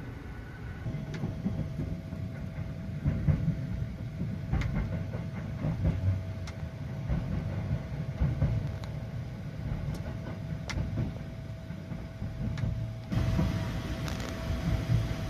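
Interior running noise of the Sunrise Seto sleeper train (JR 285 series) pulling into a station: a low rumble of wheels on track with scattered sharp clacks over rail joints and points, and a thin steady tone above it. The noise steps up louder and brighter near the end.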